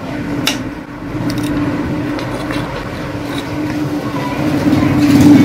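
A steady engine or motor hum that grows louder over the last couple of seconds. A few light metal clicks come about half a second and a second and a half in, as locking pliers grip the donkey pump's piston rod while its cup-washer nut is tightened.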